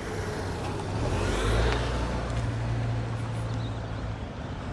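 A car driving past: a low engine and tyre hum that swells, is loudest about a second and a half in, then fades.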